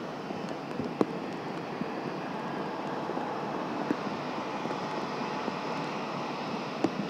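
Jet airliner engines heard at a distance as a steady rushing noise, with a few sharp ticks about a second, four seconds and seven seconds in.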